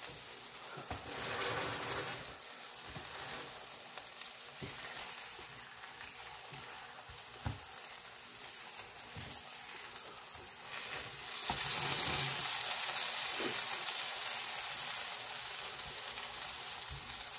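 Fatty smash burger patties sizzling in their grease on an electric flat-top griddle, with a few light knocks of a spatula. The sizzle grows louder about eleven seconds in.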